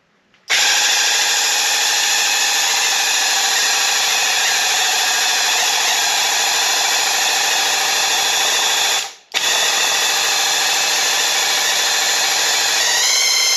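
Graco Ultimate QuickShot cordless airless sprayer's pump motor running while spraying primer: a steady whine over a high hiss. It cuts out for a moment about nine seconds in as the trigger is released, starts again, and rises in pitch near the end.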